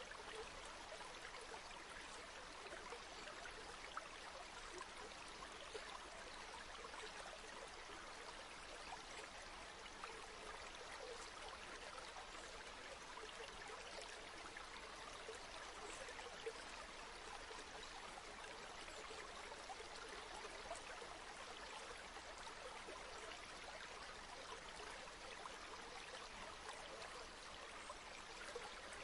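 A river flowing steadily over stones, an even, fairly quiet rush of water with small gurgles.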